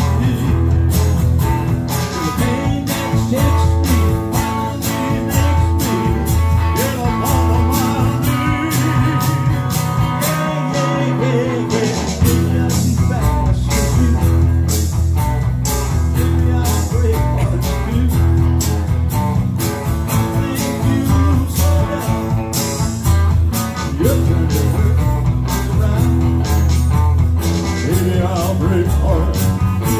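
A small live band playing a song on electric bass, acoustic guitar and electric guitar, with a man singing. The bass drops out for a moment about ten seconds in.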